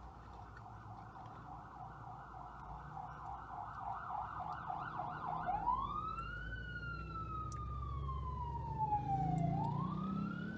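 Emergency vehicle siren sounding: a fast warbling yelp that switches about halfway through to a slow wail, rising, falling slowly and rising again, growing louder. A low vehicle rumble swells underneath near the end.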